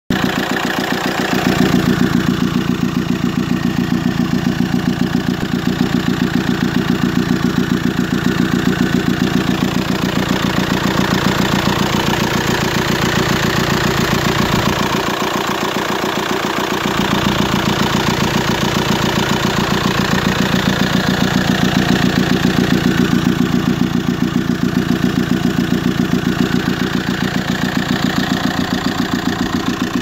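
Audi A4 B7 2.0 TDI four-cylinder turbodiesel idling steadily with a fast, even pulsing, a running sound the owner calls bad.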